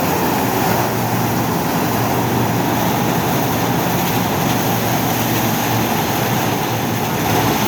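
Rice threshing machine running steadily, its drive and threshing drum making a loud, even mechanical din.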